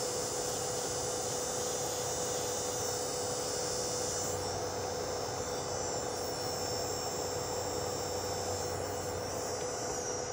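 American Nails dust collector fan running steadily: an even whooshing hiss with a constant hum.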